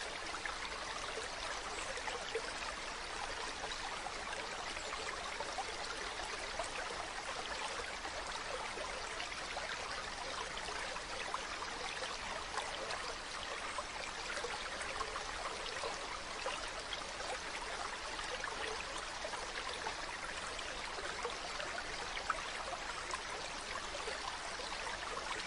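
Mountain river running over rocks: a steady rushing of water with fine splashes and trickles.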